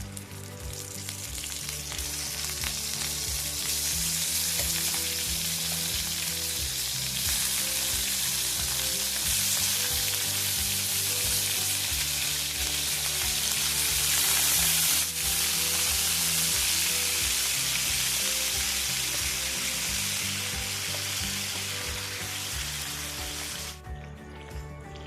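Food sizzling as it fries in hot oil in a pan, a steady loud hiss that cuts off suddenly near the end. Background music plays underneath.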